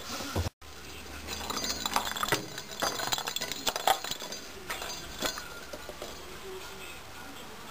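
Small bell inside a cat's toy ball jingling and clinking in quick irregular bursts as a kitten bats and chases it, thinning out over the last couple of seconds.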